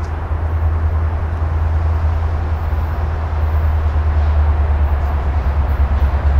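Diesel freight locomotive approaching, a deep engine rumble that grows slowly louder.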